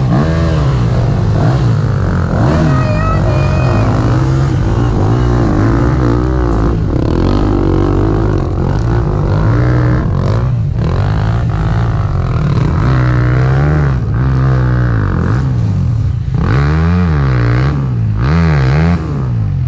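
Husqvarna two-stroke enduro motorcycle engine being ridden, its pitch rising and falling over and over as the throttle is opened and closed, with several short drops along the way.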